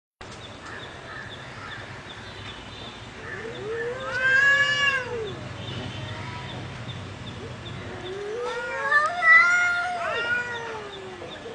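Cats caterwauling in a fight: a long yowl that rises and falls about four seconds in, then overlapping drawn-out wails from about eight to eleven seconds.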